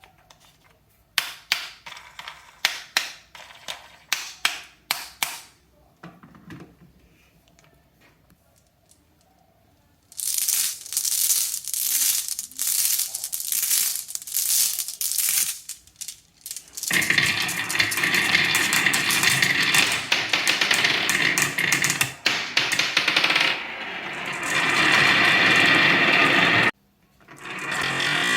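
Marbles clicking one by one down a HABA wooden marble run, then a dense, continuous clatter of many marbles rolling and knocking together for the second half.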